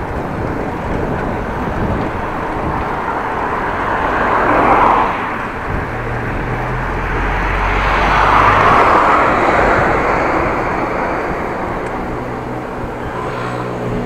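Motor vehicles passing a moving bicycle over steady wind and road rush on the action-camera microphone: one swells by about five seconds in, and a longer, louder one with a low engine hum passes around eight to ten seconds in.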